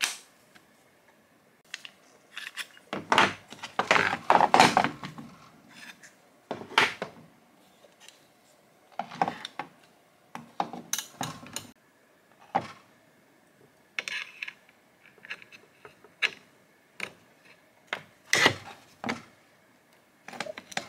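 DeWalt trigger clamps being handled: steel bars and plastic clamp bodies clicking, knocking and scraping together as the bars are fitted end to end. Irregular clicks throughout, with a dense clatter about three to five seconds in and single sharp knocks later.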